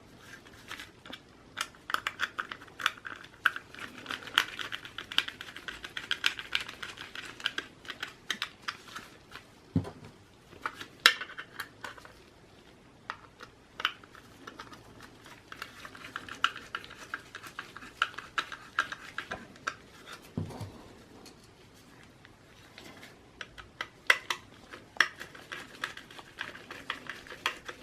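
Small screws being driven into the sides of a 2.5-inch solid state drive with a screwdriver. It comes as three spells of rapid clicking, each a few seconds long, with a dull knock twice in between.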